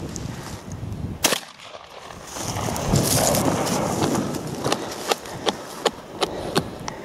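Footsteps crunching and rustling through dry grass on frosty ground, with quick, regular sharp crunches about three a second in the second half, and one louder sharp click about a second in.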